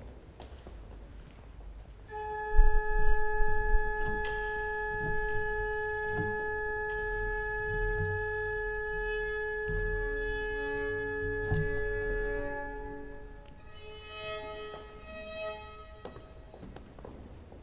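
Violin tuning to a held A: one steady note sounds for about ten seconds, starting about two seconds in, then a few shorter notes on other pitches follow near the end.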